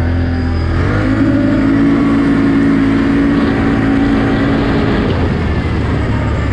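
Can-Am Outlander quad's engine running under throttle on a dirt track, its pitch rising about a second in, holding steady, then easing off about five seconds in.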